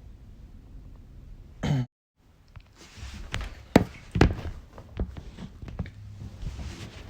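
A short vocal sound from a person, falling in pitch, about a second and a half in, then a run of knocks and thuds from things being handled near the microphone, loudest about four seconds in.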